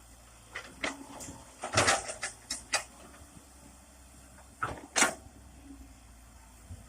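A series of irregular sharp knocks and clicks over a faint low hum, clustered around two seconds in, with two more knocks about five seconds in.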